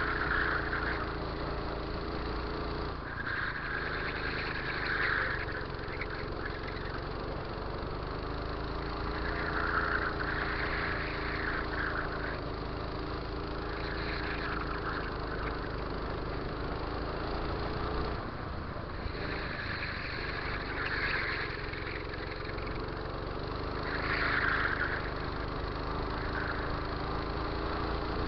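Go-kart engine heard onboard during a lap: its pitch climbs gradually along the straights and breaks off sharply twice, near the start and about two-thirds through, as the throttle is lifted for corners. A rougher, higher noise comes and goes over the engine.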